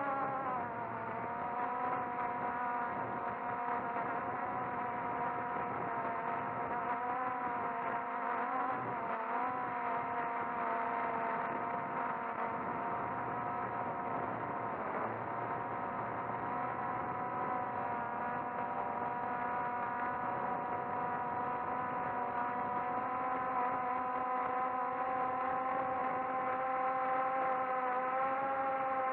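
The motors and propellers of a small SKY-HERO 'Little' multirotor drone, heard from its onboard camera, with a steady whine. Its pitch settles after a climb at take-off, wavers briefly, and edges higher near the end as the throttle changes.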